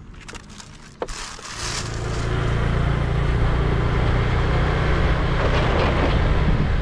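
Small underbone motorbike pulling away and riding along: after a few light clicks and a sharp knock about a second in, the steady engine hum and wind noise build over the next second or so and then hold.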